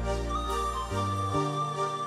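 Slow instrumental background music with held notes over a bass line that changes pitch a couple of times.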